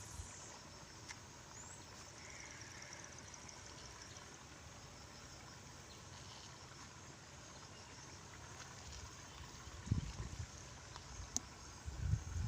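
Faint outdoor ambience: a steady hiss with a thin, high, pulsing insect chirr, and a few low bumps near the end.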